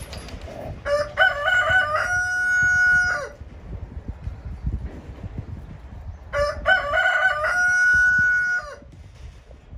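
A rooster crowing twice, about five seconds apart. Each crow is a couple of seconds long, with a broken-up start and a long held final note that drops off at the end.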